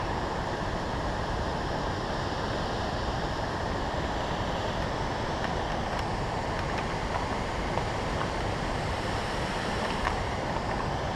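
Steady rushing of a river: a waterfall and shallow rapids pouring over rocks and gravel.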